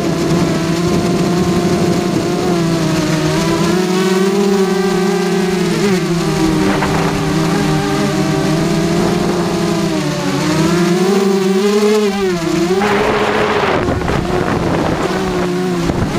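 Brushless motors and propellers of a QAV carbon-fibre racing quadcopter in flight, heard from on board: a steady buzzing whine of several tones that rise and fall together as the throttle changes. A brief rush of noise comes in about 13 seconds in.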